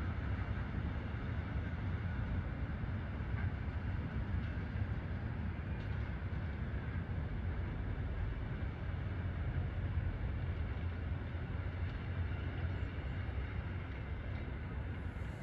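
Steam-hauled passenger train behind the Danish locomotive DSB Q 350 running on the line, a steady low rumble.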